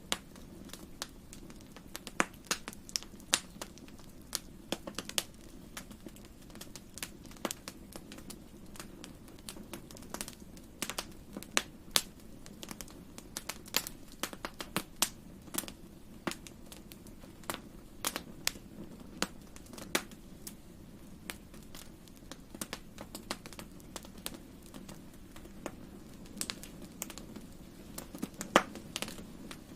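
Wood fire crackling in a fireplace: irregular sharp pops and snaps, some loud, over a steady low rumble of the burning fire.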